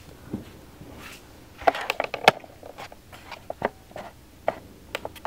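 Light handling sounds: a few soft knocks and clicks as sneakers and a cardboard shoebox are moved about, with a cluster of them about two seconds in.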